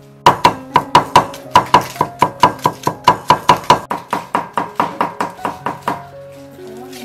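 Rapid, even knife chopping on a cutting board, about five strokes a second, fading a little toward the end and stopping about six seconds in, over background music.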